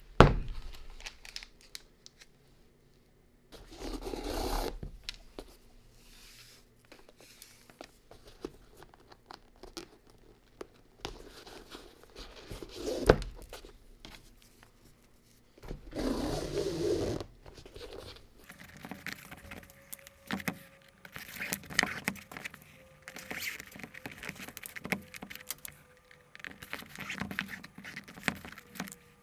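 Hands working on a sneaker: irregular scraping and rustling with scattered clicks, a sharp knock about halfway through, and two brief noisy bursts.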